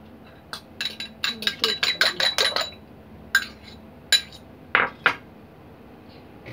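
A metal fork beating egg in a ceramic bowl, clinking quickly against the bowl's sides about five times a second for some two seconds, then four single clinks.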